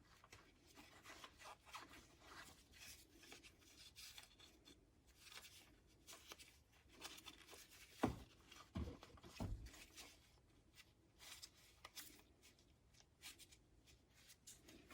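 Faint rubbing and light scraping as a wire is worked back into small plastic holders, with a few brief knocks about halfway through.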